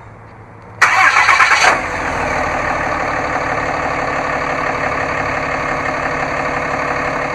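A 2015 Ram 2500's 6.7-liter Cummins inline-six turbo diesel starting by remote start. About a second in it fires with a brief loud flare, then settles into a steady idle.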